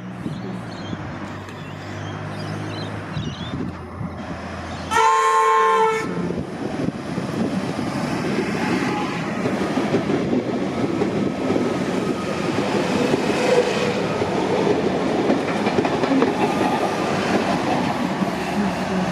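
Comeng electric suburban train sounding its horn once for about a second, about five seconds in, then running past with a steady noise of wheels on rails, as it runs empty back to the yards.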